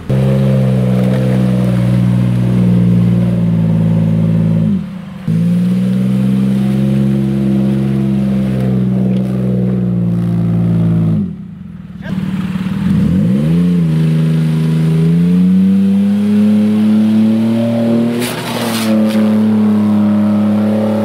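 Off-road SUV engine running hard at high, steady revs under load on a steep mud climb, the revs briefly falling and picking back up twice.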